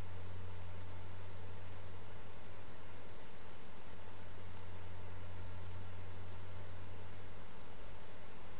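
Computer mouse clicking lightly and irregularly, about fifteen faint clicks over several seconds, over a steady low background hum.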